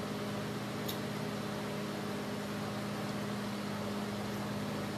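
Steady mechanical hum with a hiss beneath it, even throughout, with one faint click about a second in.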